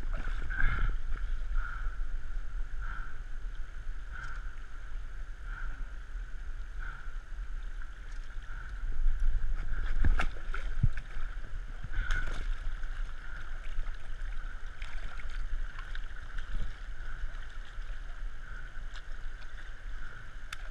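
River current rushing and lapping around the camera, with a low rumble and a few splashes and knocks, loudest around ten seconds in, as a large Chinook salmon is held in the shallow water for release. A faint high pulse repeats a little more than once a second.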